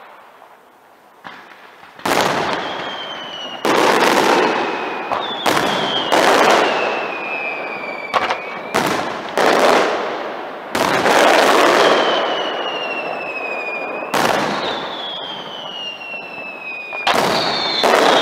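Aerial firework shells bursting: about a dozen loud bangs, each trailing off, several followed by a high whistle that slides slowly down in pitch over a couple of seconds.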